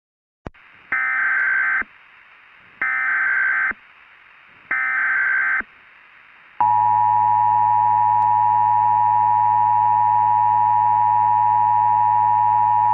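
Emergency Alert System broadcast tones. Three short bursts of digital header data, about a second each and two seconds apart, are followed about six and a half seconds in by the steady two-tone attention signal.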